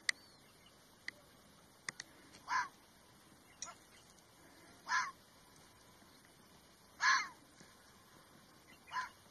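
Red fox barking: four short calls about two seconds apart, each dropping in pitch. A few sharp clicks fall between them in the first few seconds.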